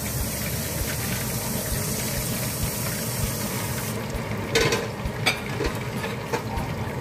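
Pot of fish pieces in water heating on a stovetop: a steady hiss and bubble of water coming up to heat. The higher part of the hiss stops about four seconds in, followed by two short knocks.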